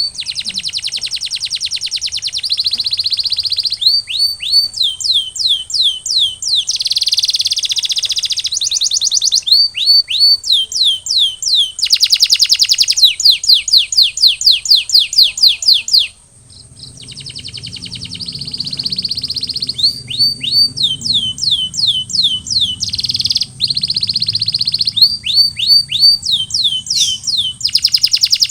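Male canary singing a continuous song of fast trills and repeated rising sweeping notes, each phrase repeating for a second or two before switching to the next. The song breaks off for about a second a little past the middle, then resumes.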